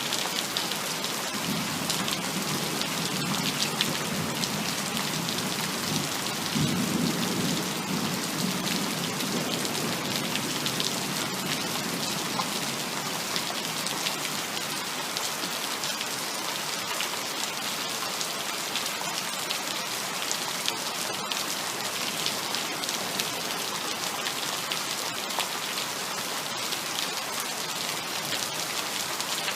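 Heavy rain falling steadily, with a low rumble of thunder in the first third that swells about seven seconds in, then dies away.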